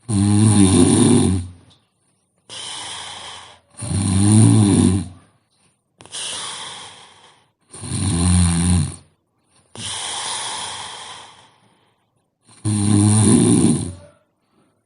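Heavy snoring from a sleeping person: four loud, pitched snores of about a second and a half each, alternating with three quieter, breathy breaths between them.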